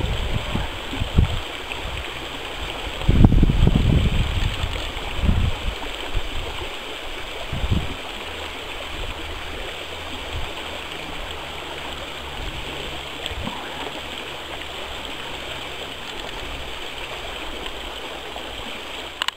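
Open stream water rushing steadily between ice shelves. Gusts of low rumble, like wind on the microphone, come and go through the first eight seconds or so, then only the water remains.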